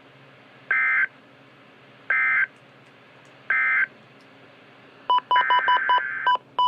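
NOAA Weather Radio SAME digital data bursts: three short buzzy bursts about a second and a half apart, the end-of-message code that closes the flash flood warning. About five seconds in, a run of quick electronic beeps starts, mixed with another data burst.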